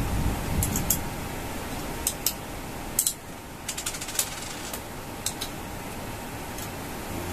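Light, irregular clicks and taps from an adjustable mount being handled and set in position, about a dozen in all, mostly in the first five seconds, over a steady background hum.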